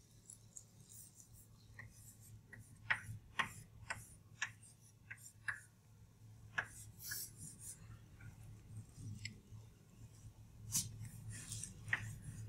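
Chalk writing on a blackboard: a run of short scratches and taps of the chalk stroking and dotting, faint, over a low steady hum.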